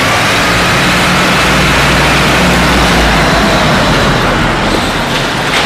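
Small ride-on mini tractor's engine running steadily as it drives along, a loud, close low hum under a rushing noise, inside an underground car park.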